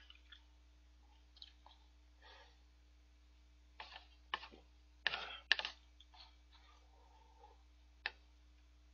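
Someone eating udon noodles from a takeout bowl: short clicks of chopsticks against the bowl and mouth noises of chewing and slurping, loudest in a cluster of slurps about four to six seconds in.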